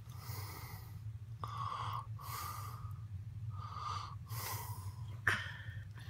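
A sleeping man snoring: about five noisy, airy breaths in and out, each under a second long, with a sharp click about five seconds in.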